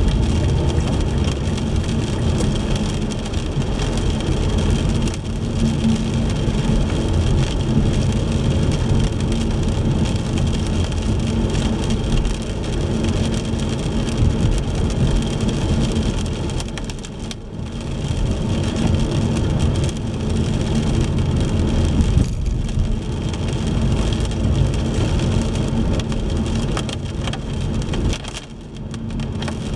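A car driving on wet roads in the rain: steady road and tyre noise mixed with rain on the car. The noise dips briefly three times.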